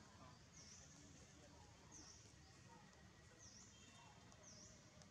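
Near silence: faint outdoor ambience with a short, high chirp repeated four times, about one every second or so.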